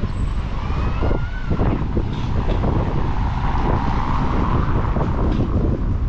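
A motor vehicle passing, swelling in the middle, over a steady low rumble of wind on the microphone.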